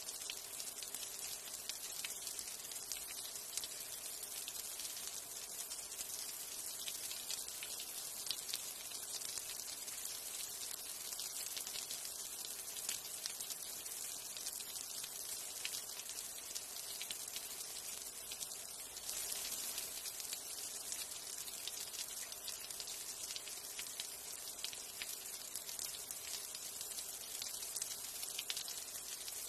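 Light rain falling steadily: an even hiss of rain dotted with many fine droplet ticks.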